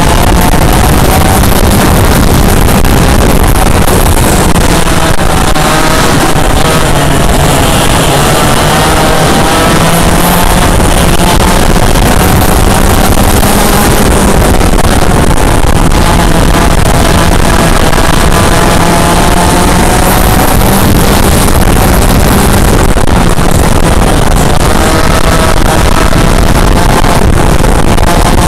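Yamaha KT100 100cc two-stroke kart engine at race speed, heard onboard: a loud buzz whose pitch climbs and falls again several times as the kart accelerates and lifts.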